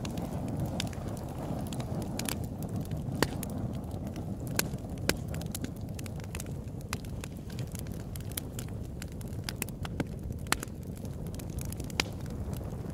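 Crackling fire: irregular sharp pops and snaps, a few a second, over a steady low rumble.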